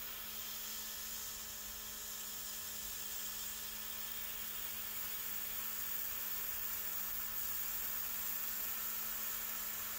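Autolock cordless airbrush running: its small rechargeable compressor whirs with a steady hum while air and pink paint hiss evenly out of the nozzle.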